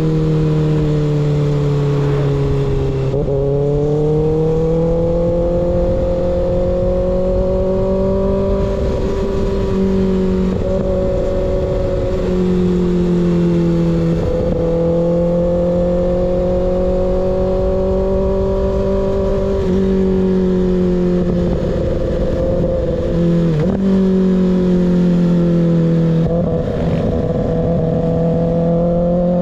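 Kawasaki ZX6R inline-four engine running through an unbaffled M4 slip-on exhaust while riding. The engine note holds fairly steady but rises, falls and steps in pitch several times with the throttle, over a constant wind rush.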